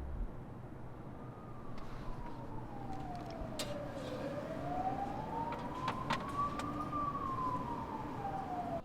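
Emergency vehicle siren in a slow wail, falling, rising and falling again, over a steady low rumble, with a few sharp clicks. It cuts off suddenly near the end.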